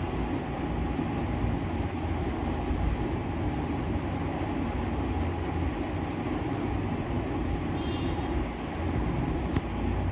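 Steady low rumbling background noise, with one short sharp click near the end.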